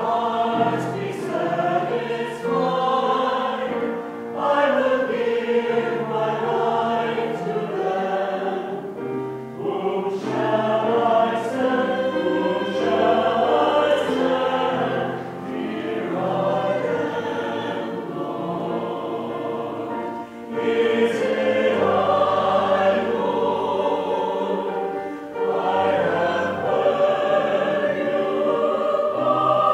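Mixed church choir, men's and women's voices together, singing held notes in phrases with short breaks between them.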